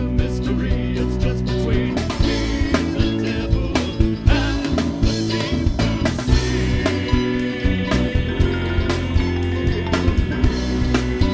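Band music: electric guitars, bass and drum kit playing with a steady beat, with some singing.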